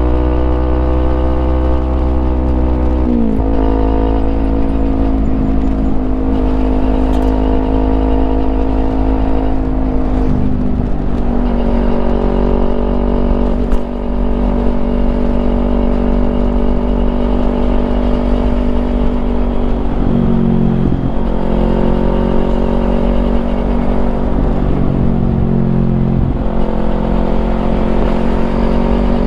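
Kawasaki Ninja 250's parallel-twin engine running through a Yoshimura exhaust. The note holds or climbs slowly, then drops sharply four times: a few seconds in, about ten seconds in, around twenty seconds and again near the end.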